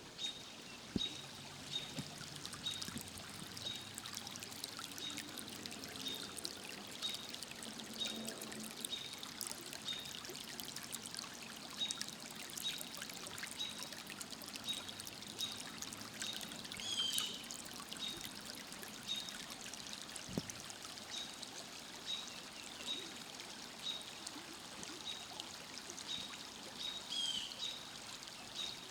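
Outdoor field-recording ambience of flowing, trickling water. A short high chirp repeats nearly twice a second throughout, and a couple of bird calls come through about two-thirds of the way in and near the end.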